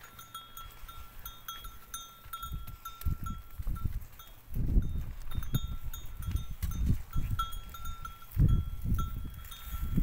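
Cattle grazing on dry straw, with a small bell ringing in short, repeated notes. From about two and a half seconds in, low close-up rumbling noise comes in uneven gusts, loudest about halfway through and again near the end.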